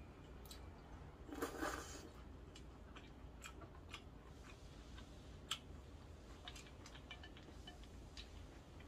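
A short slurp of cold buckwheat soba noodles about a second and a half in. Then come scattered light clicks as wooden chopsticks pick noodles off a glass plate.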